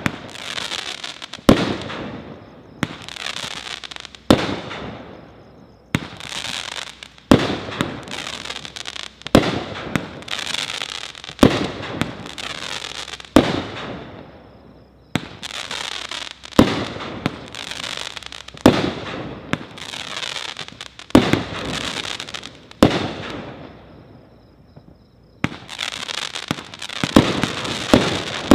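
Brothers Fireworks 'Heavy Metal' 500-gram multi-shot cake firing its shots in sequence: a sharp report every one to two seconds, each trailing off in about a second of hiss as the silver-white stars burn out. The volley pauses briefly a few times.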